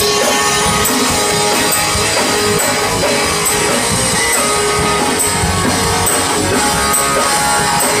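Rock band playing live: electric guitar over bass and a drum kit, with the drums keeping a steady beat.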